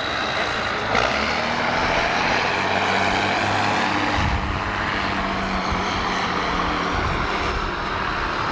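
A machine running steadily: a low motor hum under a broad rushing noise, with a single sharp click about a second in.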